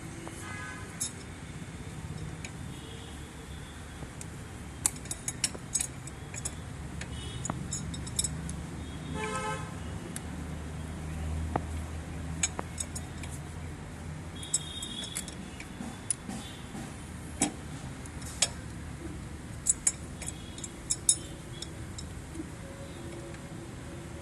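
Scattered sharp clicks and clinks, like hand tools knocking on pipe fittings, over a steady low rumble of traffic. There are brief pitched tones near the start and about nine seconds in.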